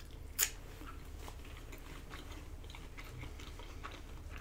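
Person chewing a mouthful of food, soft wet mouth sounds with a single sharp click about half a second in.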